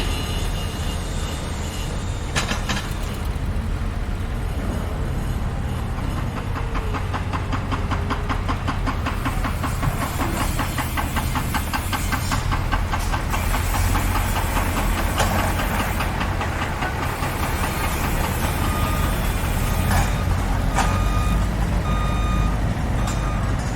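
Heavy construction vehicle's engine running steadily, with a rapid regular knocking through the middle stretch and a reversing alarm beeping repeatedly near the end.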